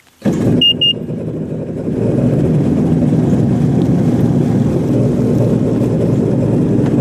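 Jet ski engine starting up and running steadily, with two short electronic beeps just after it catches; it gets a little louder about two seconds in.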